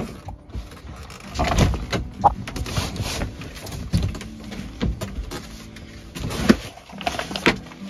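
Canvas rustling and metal support bars clunking as the bunk end of a pop-up tent trailer is set up by hand, with irregular knocks, the sharpest about six and a half seconds in.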